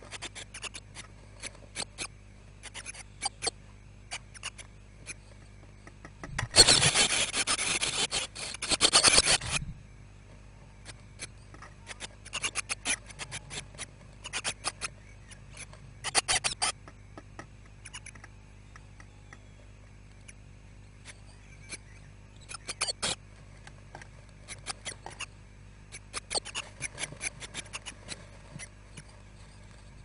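Blue tit nestlings shuffling about in a wooden nest box: scattered short scratching and rustling sounds of the chicks moving on the nest material and wood, with a dense, louder stretch of scrabbling about six seconds in that lasts some three seconds. A faint steady low hum runs underneath.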